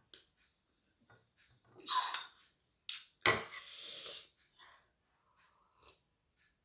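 Close-up mouth and breath sounds of a person eating, with a sharp knock about three seconds in followed by a second-long noisy breath or slurp.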